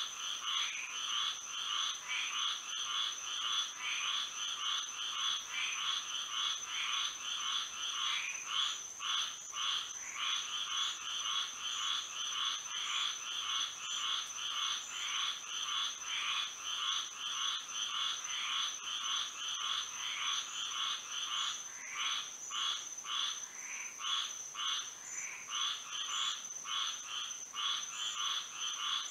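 A chorus of many frogs calling, their short calls repeating rapidly and overlapping, with a steady high-pitched tone running underneath.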